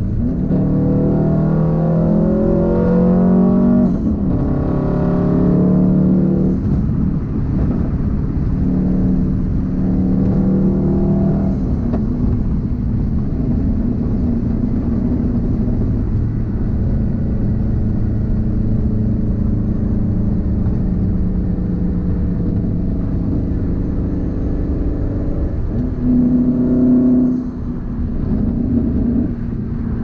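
2004 Subaru WRX STi's turbocharged 2.5-litre flat-four engine, heard from inside the cabin, climbing in pitch through a couple of gear changes over the first dozen seconds, then holding a steady cruise. A short rise in revs near the end before lifting off.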